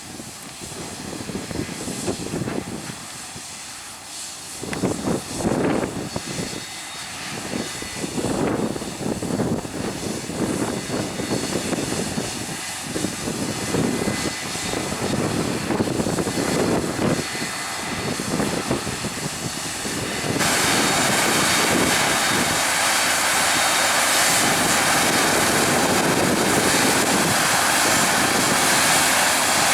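Large diesel harvest machinery running with an uneven, surging drone; about twenty seconds in the sound switches abruptly to a louder, steady rushing drone.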